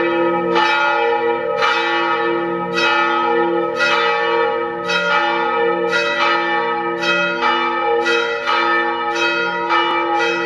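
Church bells ringing, about two strikes a second, each stroke ringing on into the next.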